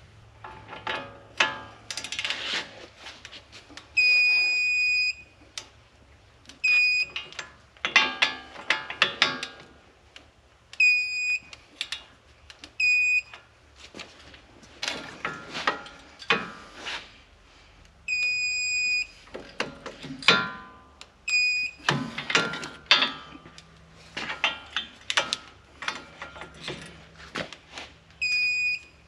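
Digital torque wrench beeping while the hub bolts are tightened to 149 foot-pounds: a high electronic beep, some short and some held about a second, the signal that the set torque is reached. Between the beeps come bursts of ratchet clicking from the wrench.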